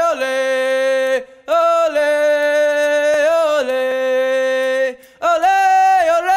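Background music: an unaccompanied voice sings long held notes in phrases, with short breaks about a second in and near the end.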